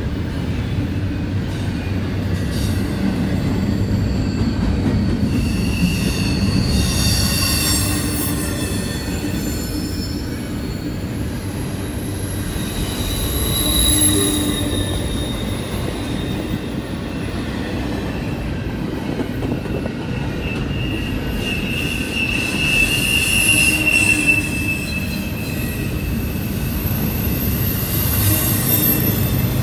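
Double-stack container train passing at close range: a steady rumble of steel wheels on rail, with high-pitched wheel squeal rising several times.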